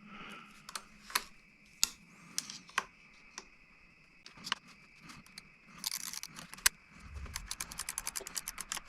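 Scattered metallic clicks and taps of hand tools on the handlebar clamp hardware, then about seven seconds in, a fast run of ratchet clicks, about a dozen a second, as a ratchet wrench with a 10 mm socket is worked.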